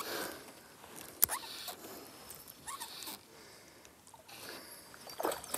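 Faint splashing and swirling of a hooked bass thrashing at the water's surface, mixed with small scattered clicks and one sharp click about a second in.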